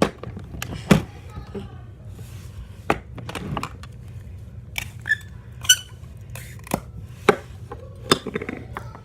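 Irregular sharp taps and knocks, about a dozen over several seconds, of hard objects being handled and set down on a hard surface.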